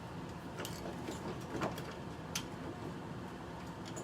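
Door knob hardware being handled: a few light clicks and taps over a steady low hum.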